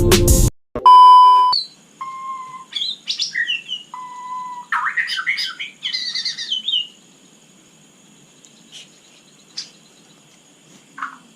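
Music cuts off, then a loud steady beep-like tone sounds for under a second. A white-rumped shama sings clear whistled notes and fast, gliding phrases for about five seconds. After that there are only a few faint calls over a faint steady high hum.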